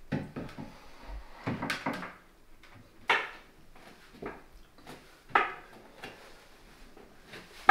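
Wooden knocks and bumps from a tall plywood panel being set against and pressed onto the side of a flat-pack wardrobe frame, where it is being stuck on with glue. About six separate knocks, the clearest about three and five and a half seconds in.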